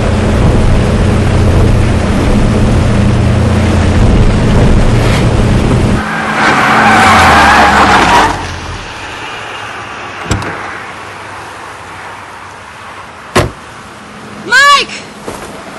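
Steady drone of a small aircraft inside its cabin, cut off about six seconds in by a loud two-second rush of a car skidding to a stop on grass. A sharp knock like a car door shutting comes later, then a short loud sweeping sound near the end.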